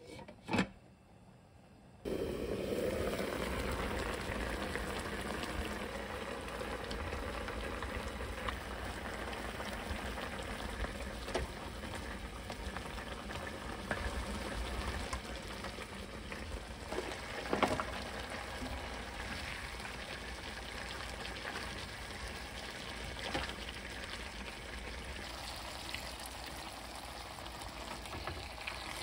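Pork ribs braising in a pan: the sauce boils and sizzles steadily from about two seconds in, with a few light knocks of a wooden spatula against the pan as it is stirred. A brief clink sounds just at the start.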